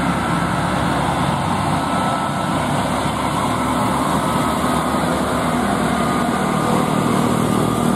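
Diesel engine of a heavily loaded Mitsubishi Fuso cargo truck running steadily under load as the truck drives past close by. The sound grows a little louder toward the end.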